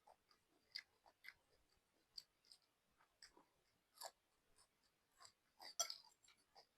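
Close-up chewing of instant noodles, with soft wet mouth smacks and clicks at an irregular pace and a louder cluster about five to six seconds in.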